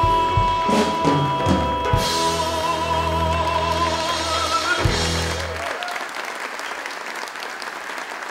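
A male singer holds a long final note with vibrato over a sustained accompaniment chord, which cuts off about five and a half seconds in. Audience applause rises under the ending and carries on after the music stops.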